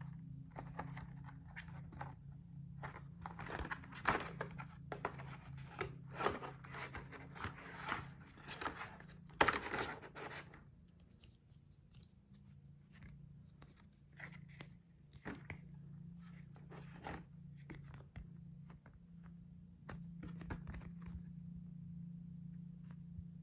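Packaging being torn open and crinkled by hand: a run of rustling tears over several seconds, the loudest just before the middle, followed by lighter taps and handling noises. A steady low hum runs underneath.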